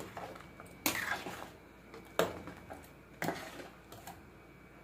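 Metal ladle clinking against a stainless steel stockpot as it works in the steaming chicken broth, a few sharp clinks about a second apart.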